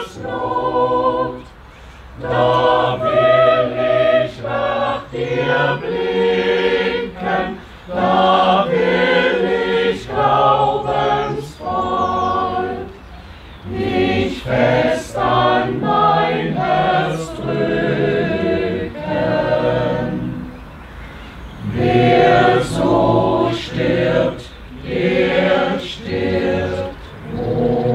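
A choir singing unaccompanied, in sung phrases with brief breaths between them.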